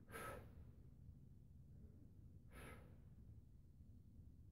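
Near silence with two faint breaths from a man exerting himself through an inverted row, one right at the start and one about two and a half seconds in.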